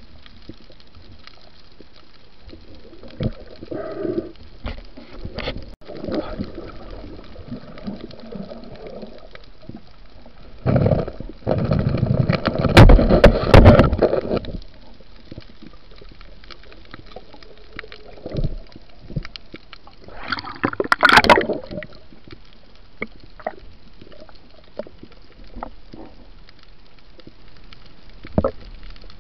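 Underwater sound on a diver's camera: a low hiss with scattered clicks, broken by loud gurgling water noise about eleven to fourteen seconds in and a shorter, higher gurgle around twenty-one seconds.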